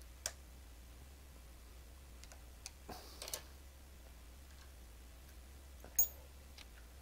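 Scattered light clicks and taps of tools and metal parts being handled at a small bench vise, a few together about three seconds in and the sharpest about six seconds in, over a steady low hum.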